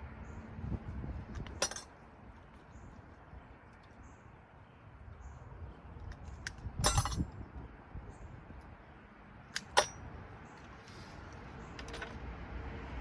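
Small metal light-socket parts clinking as they are pulled apart by hand and sorted for their brass: three sharp clinks, about two seconds in, near the middle and about ten seconds in, with low handling noise between.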